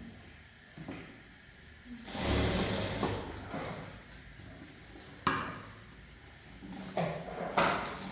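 A sewing machine runs in one short burst of about a second, starting about two seconds in. A few sharp clicks and knocks follow.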